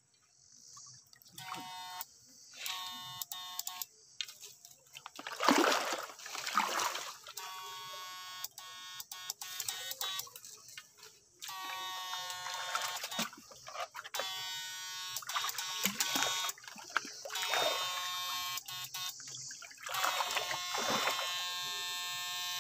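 Backpack electrofishing unit buzzing in on-off bursts of a few seconds as its electrode poles are worked in the water, with water splashing in between, loudest about six seconds in.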